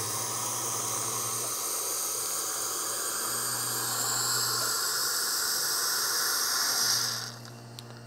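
Hot water spouting from the La Marzocco Linea Micra espresso machine's hot water tap into a glass: a steady hissing rush that cuts off about seven seconds in.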